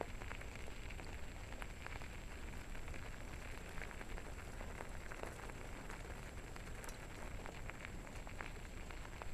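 A dog scooter's tyres rolling steadily over a gravel road: a continuous crackle of gravel under the wheels with scattered small clicks over a low rumble.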